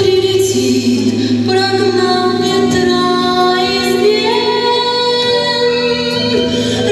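Voices singing long held notes over a steady instrumental accompaniment, the notes changing every second or two.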